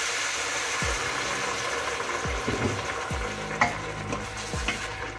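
Hot stainless-steel pot hissing and sizzling as a little water hits the sautéed chicken feet and spices, the sizzle fading over a few seconds. A wooden spoon stirs the pot, with a few soft knocks.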